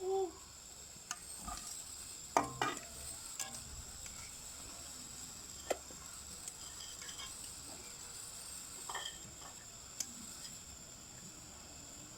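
Pakoras frying in hot ghee in a kadhai, a steady faint sizzle, with a utensil knocking and scraping against the pan a few times as the cooked pakoras are lifted out, the loudest knocks about two and a half seconds in. A brief pitched call sounds right at the start.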